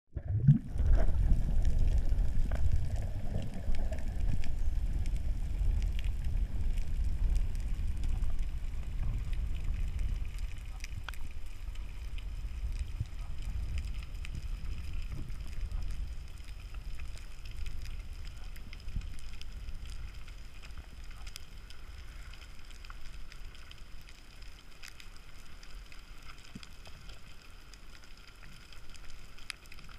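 Muffled underwater sound picked up by a camera in its waterproof housing: a low rumble of water moving past, strongest in the first ten seconds and then fading, with scattered faint clicks and crackles.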